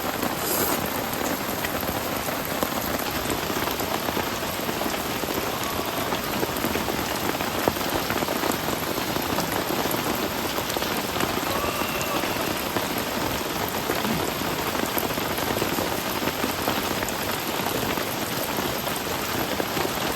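Steady rain falling and pattering without a break.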